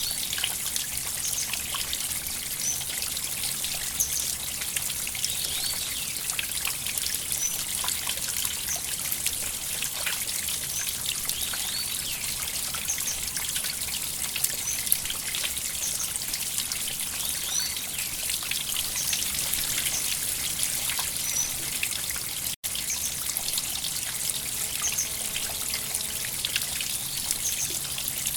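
A small river or stream flowing, a steady trickling and splashing of water. It cuts out for an instant about two-thirds of the way through.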